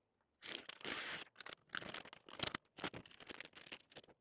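A sheet of adhesive contact paper being handled and pressed down around a sink: a faint, irregular run of papery rustles and small clicks, with one longer rasp about a second in.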